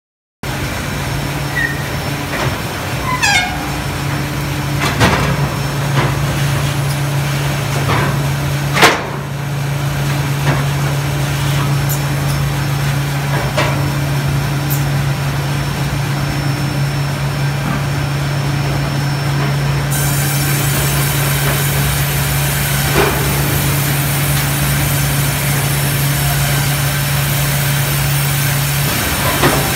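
LBL Brenta sawmill log line running: a steady low machine hum, with metallic clanks and knocks as logs are handled on the chain conveyors and log turners. A loud knock comes about nine seconds in, and a short falling squeal about three seconds in.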